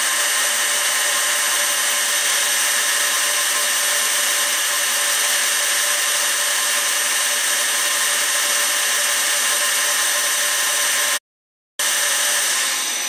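Precision Matthews PM-727M mill's spindle motor and belt drive running at high speed: a steady whir with several constant high whines, broken by a half-second dropout near the end.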